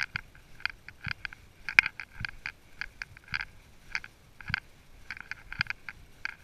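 Horse walking a leaf-littered woodland trail: irregular hoof falls crunching through dry leaves, with light clinking of the tack at the strides.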